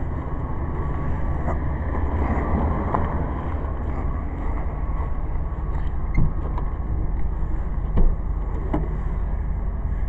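Ram van's engine idling steadily, heard from inside the van, with a few light knocks in the second half.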